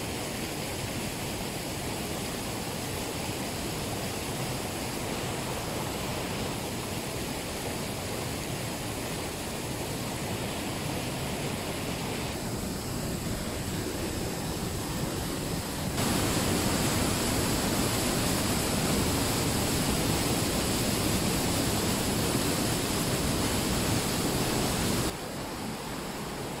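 The Weissbach mountain stream rushing and cascading over rocks in a narrow limestone gorge, a steady sound of running water. It grows louder a little past halfway and drops back just before the end.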